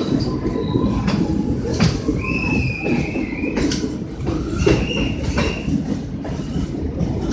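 Train running on the line: a steady rumble of wheels on rail with a few sharp knocks, and three wavering high-pitched wheel squeals, the longest held for more than a second near the middle.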